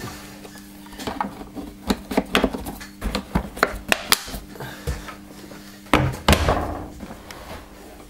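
Plastic clicks and knocks as the exhaust filter cover of a Dyson DC08 vacuum is pressed down over the new exhaust filter and snapped into place, with a louder thump about six seconds in.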